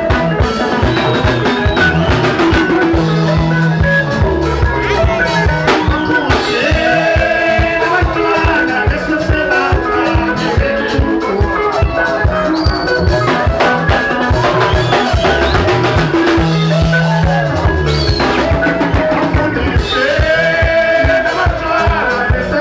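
Live Zimbabwean rumba band playing: bright electric lead guitar lines over bass and a drum kit keeping a fast, steady beat.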